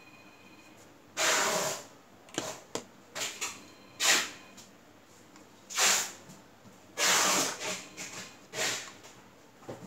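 Plastic Walther P38 replica gas lighter being handled: five short rushing, scraping bursts as it is lifted and gripped, with a few light clicks between them.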